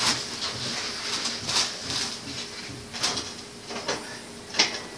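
Scattered clicks and scrapes, about five in a few seconds, from hands and tools working at a BMX bike's rear wheel, over a faint steady hiss.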